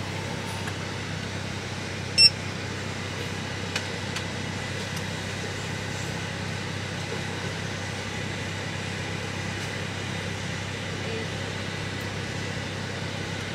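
Steady noise of a car running, heard from inside the cabin, with one short high beep about two seconds in.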